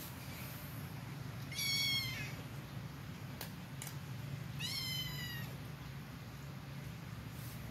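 A kitten mewing twice, two high-pitched drawn-out mews about three seconds apart, the first one louder.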